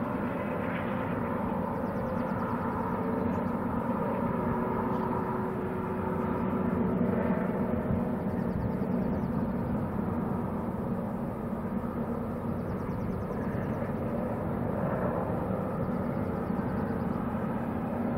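Double-stack freight train rolling steadily around a curve: a continuous rumble of diesel locomotives and wheels on rail.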